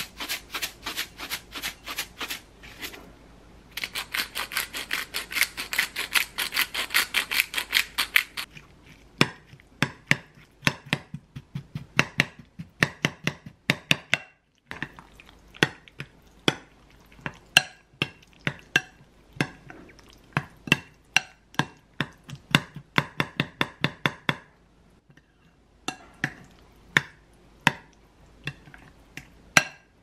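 A spoon stirring thick yogurt, cucumber and dill in a glass bowl, with repeated clinks and scrapes against the glass. In the first third comes a dense, rapid run of clicks.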